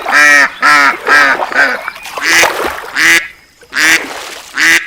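Waterfowl calling: a run of short, honking calls, about three a second at first, then coming more spaced out.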